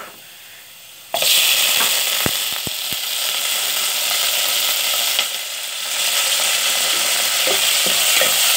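Chopped chicken going into hot oil with browned onion and garlic in a pot: a loud sizzle starts suddenly about a second in and keeps on, with a few knocks around 2–3 s and the light scrape and tap of a ladle stirring the meat near the end.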